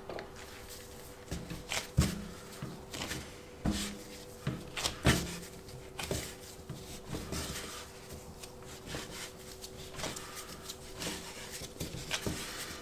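Hand-kneading bread dough on a floured work surface: irregular soft thuds and knocks with rubbing, the two loudest knocks about two and five seconds in.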